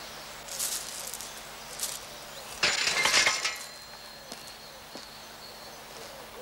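A bicycle falling over onto the ground with a sudden loud clatter of metal, followed by a thin metallic ring that fades over a couple of seconds.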